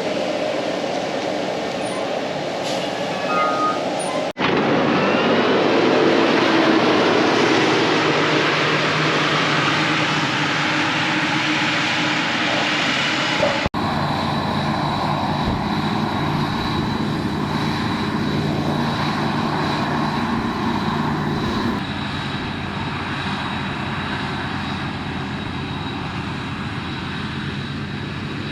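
Large diesel harvesting machinery running steadily, as at a maize forage harvest, in three edited stretches with abrupt cuts about four and fourteen seconds in.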